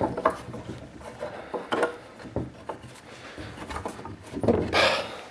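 A piece of birch being worked into the blade opening of a homemade table-saw top: scattered wooden knocks and clicks, with a scraping rub of wood on wood near the end.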